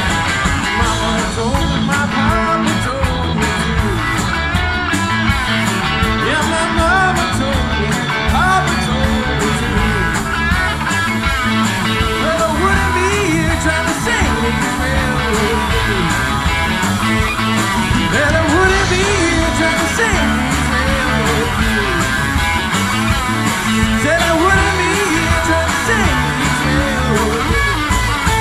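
A live rock band playing a bluesy rock number: electric guitars with a bending lead line over bass guitar, drums with cymbals, and keyboards.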